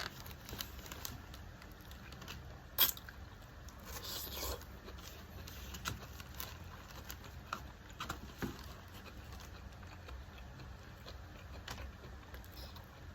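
A person eating: chewing and small mouth noises, with scattered sharp clicks, the loudest about three seconds in, and a short rustle around four seconds.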